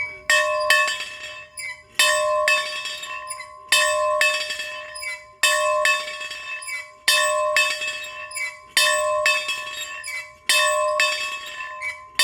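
A bell rung over and over: a strong strike about every one and a half to two seconds, often followed closely by a lighter one, with the bell ringing on between strikes.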